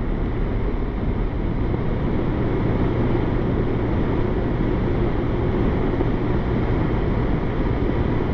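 Kawasaki motorcycle engine running at a steady cruising speed, mixed with wind rushing over a helmet-mounted microphone.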